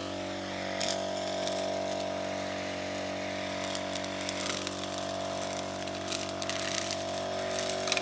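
Brush cutter's small engine running at a steady speed while its nylon string cuts grass, with a few light ticks.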